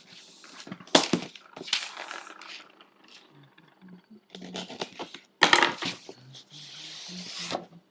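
A cardboard product box and its packaging being handled and opened: irregular rustling and scraping with several sharp knocks.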